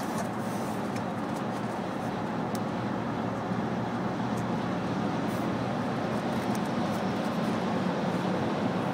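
Steady road and tyre noise heard inside a car cabin at highway speed, growing slightly louder near the end.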